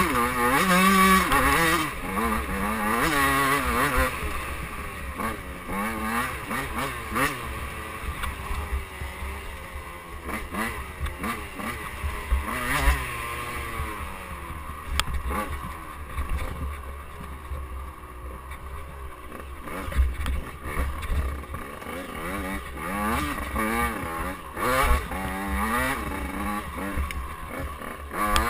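KTM 85cc two-stroke dirt bike engine running under the rider, its pitch rising and falling constantly as the throttle is worked through the trail's bends and bumps, loudest in the first few seconds. Wind rumble on the microphone runs underneath, with a few sharp knocks from the bike hitting bumps.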